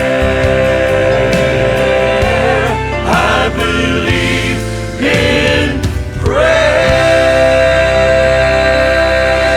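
Southern gospel male quartet singing with band accompaniment, closing the song on a long held final chord from about six and a half seconds in.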